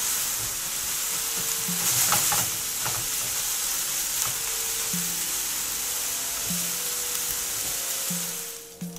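Ground pork-and-chicken mince sizzling steadily as it fries in butter in a skillet, with a wooden spatula now and then scraping and stirring it to break the meat up. The sizzle drops away just before the end.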